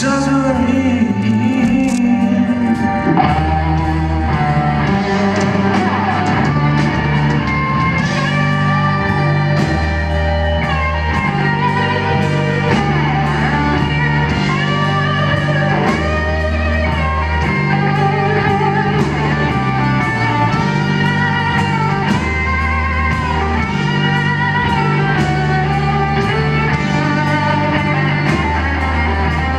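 Live blues-rock band: a Les Paul-style electric guitar plays a slow solo of long, sustained notes bent up and down, over bass guitar and drums.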